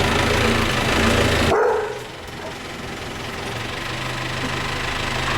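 An engine running with a dog barking. The sound drops off suddenly about a second and a half in, then a steady low engine hum builds again.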